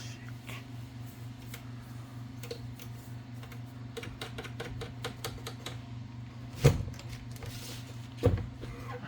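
Light metallic clicks and taps as Olivetti typewriter carriage parts are handled during cleaning and oiling, with two louder knocks near the end. A steady low hum runs underneath.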